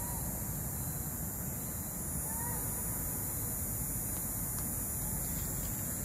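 Cicadettra xantes cicada buzzing, a continuous, steady high-pitched drone over a low rumble. Two faint short chirps come through, one at the start and one about two and a half seconds in.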